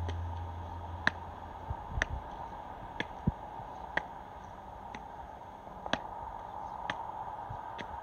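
Sharp ticks at an even pace, about one a second, like a clock, over a faint steady hum.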